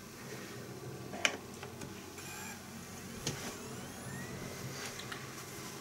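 Samsung SE-208BW slim external DVD drive spinning up a freshly loaded disc and reading it: a quiet steady motor hum with rising whines as the disc comes up to speed, and a couple of light clicks from the drive mechanism.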